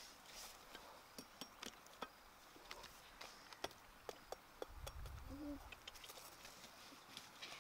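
Faint, irregular clicks and taps of bark and dry leaf litter being handled at the foot of a tree, with a soft low thump about five seconds in.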